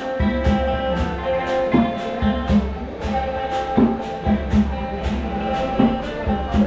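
Live band music: guitar and other held notes over a bass line, with a steady percussive beat of about two strokes a second.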